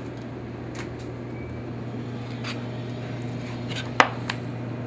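Steady low hum of kitchen machinery with a few light clicks, then one sharp knock on the plastic cutting board about four seconds in, followed by a smaller one, as a chicken breast is handled and sliced with a knife.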